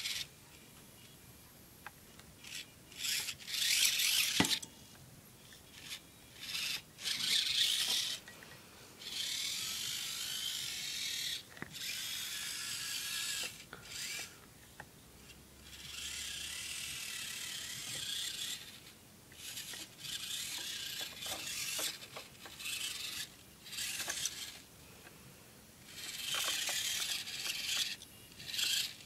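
Electric crawler motor and gear train of a Losi Micro Trail Trekker RC crawler whining in a string of short bursts, one to three seconds each, starting and stopping over and over as the throttle is worked.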